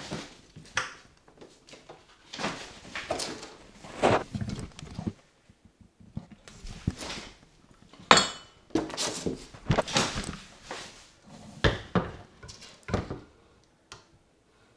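Irregular scraping and knocking, with a sharp clatter about eight seconds in, as an Argus monitor lizard scrabbles its claws on a bathtub and bumps the camera about. It dies down near the end.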